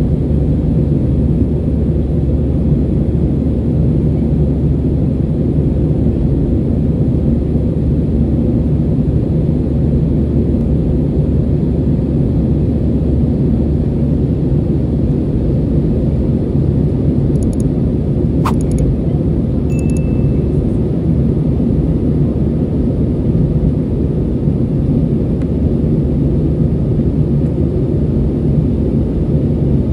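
Steady low roar of an Airbus A320 cabin in flight, from engine and airflow noise. About two-thirds of the way through there is a single sharp click, then a brief high tone.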